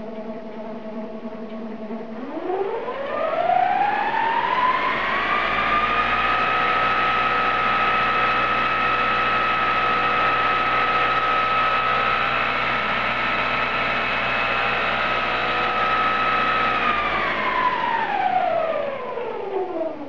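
Car alternator converted into an e-bike motor, driving a toothed-belt reduction pulley: it spins up with a rising whine about two seconds in, holds a steady high whine, then winds down near the end. The drive runs noisy because the alternator mounts are too tight and the belt is too rigid.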